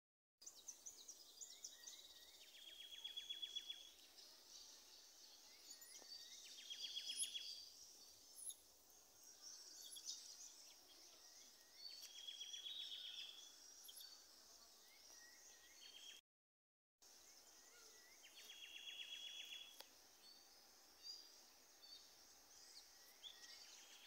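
Weaver birds calling: four buzzy, rattling phrases of about a second each, with scattered short high chirps between them.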